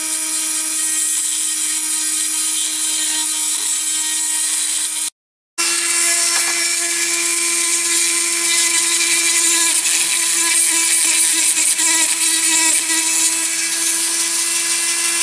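Small handheld rotary tool running steadily with a steady whine, grinding off the axle end of a die-cast model to free its wheels. It cuts out to silence for about half a second about five seconds in, then runs on at a slightly higher pitch.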